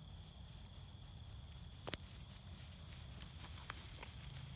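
Steady outdoor background hiss with a few faint, short ticks scattered through it, the clearest about two seconds in.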